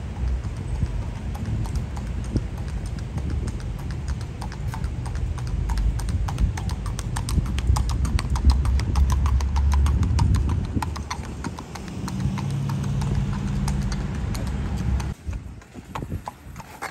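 Ridden horse's hooves clip-clopping on an asphalt street in a quick, even rhythm, over a low rumble. Near the end the sound drops away to fainter hoofbeats.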